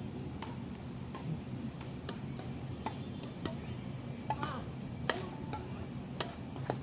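Badminton rackets striking a shuttlecock in a rally: a series of sharp, irregularly spaced hits, the loudest about five seconds in, over a steady low background hum.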